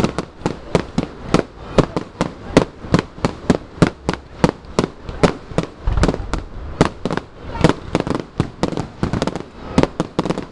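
Fireworks going off in a rapid, continuous series of sharp bangs, about three to four a second.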